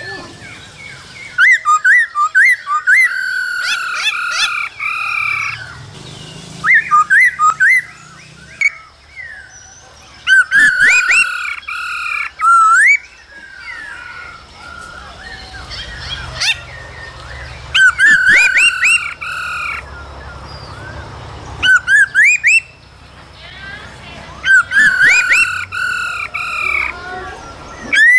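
Black-throated laughingthrushes calling: a male's song with a female's 'ro' calls. The calls come in loud bouts of rapid, rising whistled notes, every few seconds with short pauses between.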